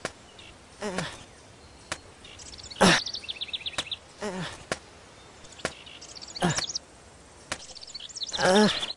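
Birds chirping and trilling in a cartoon's nature ambience, with a short falling whistle about every two seconds and a few light clicks.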